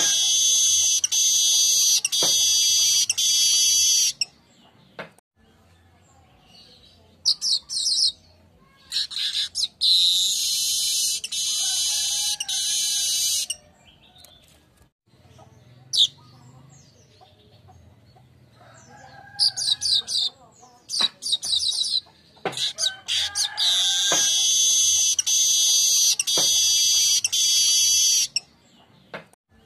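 Manyar (weaver bird) singing in loud bouts of buzzy, wheezing, sizzling song with chattery notes, several seconds each, separated by short pauses.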